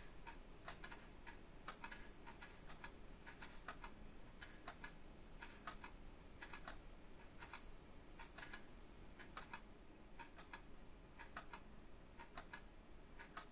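Several clocks ticking faintly, about two ticks a second, unevenly spaced as if the clocks are not in step with one another.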